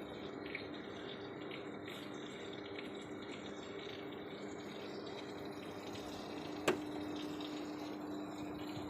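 Evaporative air cooler running: a steady hum and whoosh of the fan and motor with water trickling from its pump, and one sharp click about two-thirds through.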